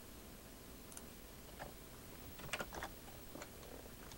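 Faint keystrokes and clicks on a computer keyboard, a few scattered taps with a short burst about two and a half seconds in.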